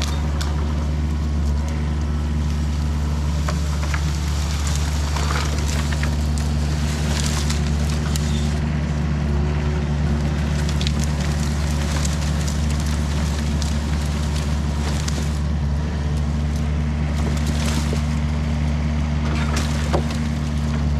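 Yanmar compact excavator's diesel engine running steady under work, with scattered brief cracks and crackles of tree-top branches being pushed and stacked.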